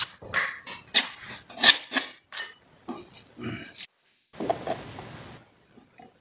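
Steel putty knife clinking and scraping against a metal trowel while loading patching compound, a run of sharp clicks. After a short pause comes about a second of steady scraping as the knife spreads the compound on the wall.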